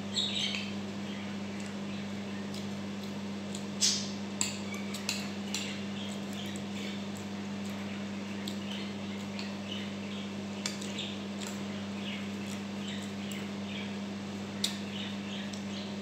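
A metal spoon and fork clinking and scraping on a ceramic plate while eating, with a few sharp clinks, the loudest about four seconds in, and chewing sounds between them. A steady low hum runs underneath.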